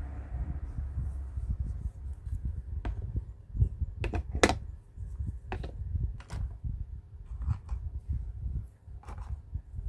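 Plastic toy reflex hammer handled and pushed into its slot in a plastic doctor-kit case: a series of sharp plastic clicks and knocks, the loudest about four and a half seconds in, over a low handling rumble.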